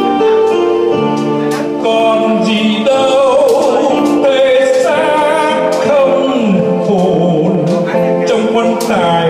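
A man singing a Vietnamese ballad into a microphone, accompanied by an electronic keyboard; his voice wavers with vibrato on long held notes.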